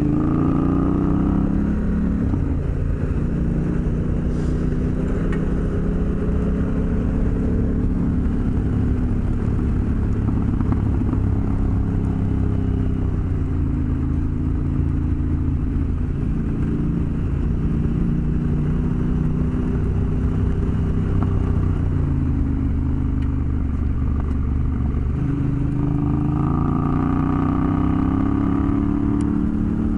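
Motorcycle engine running under way, its pitch climbing, dropping sharply about two seconds in, wandering up and down, and climbing again near the end, over a steady low wind rush.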